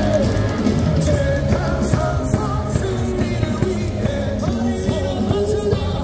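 Stadium cheer music playing over the loudspeakers, with many voices singing and yelling along.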